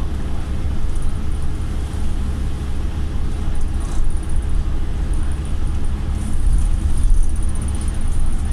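Interior of a Volvo MCV Evora single-deck bus on the move: a steady, deep engine and road rumble heard from inside the passenger saloon.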